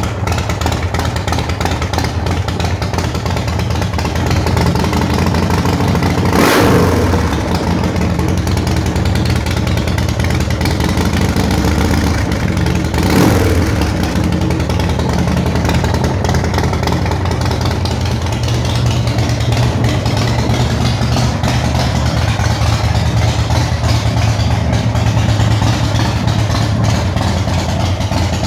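Big Dog custom chopper's V-twin engine idling steadily with a deep, even beat. It briefly swells louder twice, about six and thirteen seconds in.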